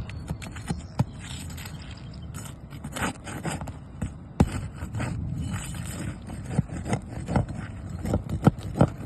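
Nails being pulled out of roof shingles: scraping as the shingles are worked loose, with irregular sharp clicks and knocks.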